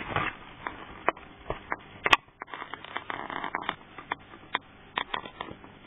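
Scattered scratching and rustling clicks as newborn Australian Shepherd puppies crawl on a fleece blanket, with one sharp click about two seconds in.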